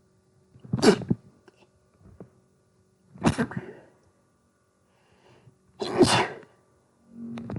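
A person sneezing three times in a row, about two and a half seconds apart, with the build-up to another sneeze near the end.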